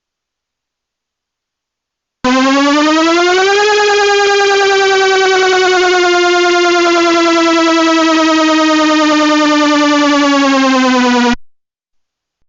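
Synthesized electronic siren tone, a single pitched tone with strong overtones. It starts abruptly about two seconds in, rises in pitch for about a second and a half, then slowly glides down for several seconds and cuts off near the end.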